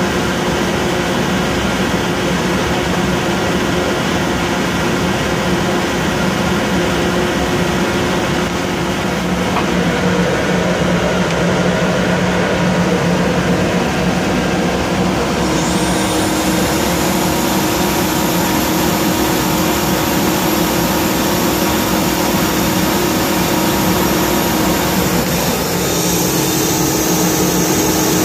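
A Kaeser AS 31 25 hp rotary screw air compressor running with a loud, steady machine hum. It gets slightly louder about a third of the way through, and a high whine glides up and then holds from about halfway on.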